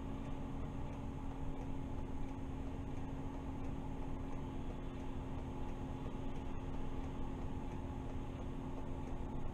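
MAN Lion's City CNG city bus standing with its natural-gas engine idling, heard inside the driver's cab: a steady hum with a few low held tones.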